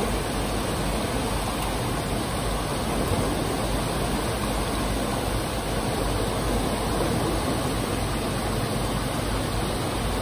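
Steady rush of water pouring over a dam spillway and churning in the river below it.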